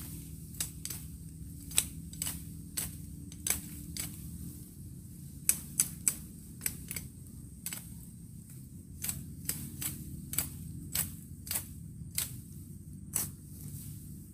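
Knife blade chopping through thin woody stems and twigs: a series of sharp, irregular snapping clicks, roughly two a second.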